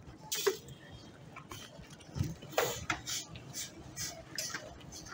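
A scattering of irregular light clicks and taps, several close together about three to four and a half seconds in, over a faint low rumble.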